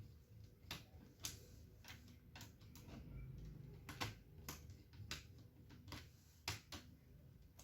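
Faint, irregular light clicks and taps, about a dozen, from a small screwdriver working a screw out of a plastic laptop case and the case being handled.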